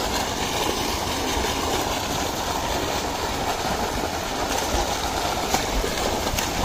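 A thick jet of water gushing from a tubewell outlet pipe into a concrete tank, a steady rushing, churning noise, with bathers splashing in the water.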